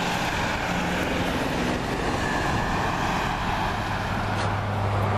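Pickup truck towing a travel trailer passing on a two-lane highway: a steady rush of tyre and road noise with a low engine hum that drops lower in pitch near the end.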